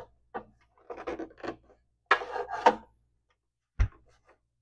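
Rusted miter saw parts scraping and rubbing in short rough bursts as they are forced to break loose, then one sharp knock near the end.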